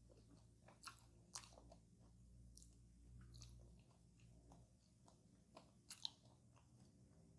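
Close-miked chewing of a crisp-crusted fast-food pie, with scattered sharp crunches of the crust between softer mouth sounds.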